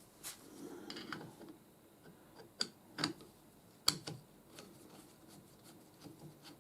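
Light metallic clicks and taps from lathe tool-slide parts being handled and adjusted by hand, with three sharper clicks a little after the middle.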